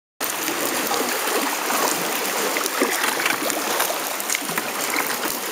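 Lake Superior water lapping and splashing against the sandstone walls of a low sea cave around a kayak: a steady wash broken by many small splashes and drips.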